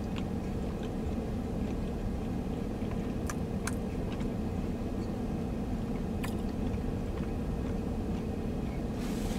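Steady low hum inside a car cabin, with a few faint mouth clicks of someone chewing food.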